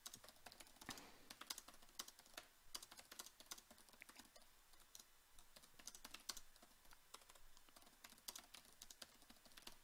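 Faint computer keyboard typing: irregular keystrokes, a few a second, with short pauses as a sentence is typed out.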